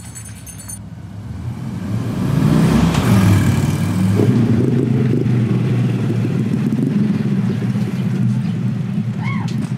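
Motor vehicle engine running close by with a rapidly pulsing low rumble, growing louder about two seconds in and then holding steady.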